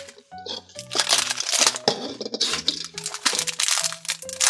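Shiny plastic toy wrapper crinkling and tearing in irregular bursts as it is pulled open by hand, over light background music.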